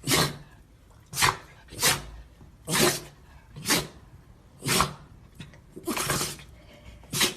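A dog making a series of short, breathy, noisy sounds, about one a second.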